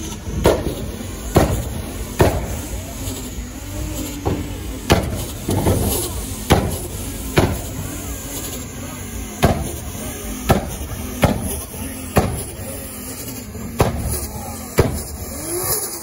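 Turbocharged Nissan 300ZX engine being revved again and again, with a sharp crack about once a second as the throttle snaps shut, the turbo flutter. Crowd voices run underneath.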